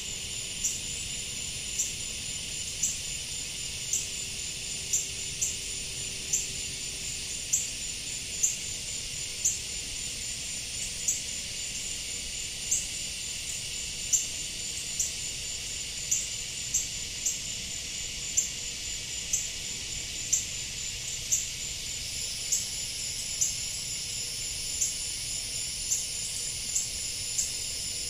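Outdoor insect chorus: a steady high-pitched trilling hiss from many insects, with one nearby insect giving a sharp high chirp about once a second.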